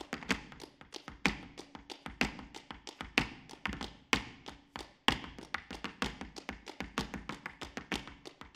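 Flamenco zapateado: the rapid heel and toe strikes of a dancer's flamenco shoes on a wooden stage, a quick run of taps with a heavy accent about once a second.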